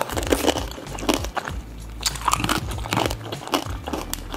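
Tanghulu being bitten and chewed close to the microphone: the hard sugar-glass shell on skewered fruit cracking and crunching in many short, sharp cracks.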